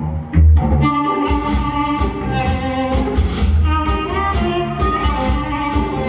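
Performance music with a steady beat and a deep bass line; a fuller arrangement with higher parts comes in about a second in.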